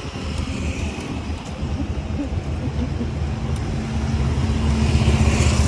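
Road traffic going by close at hand, with a motorbike's engine humming steadily and growing louder toward the end.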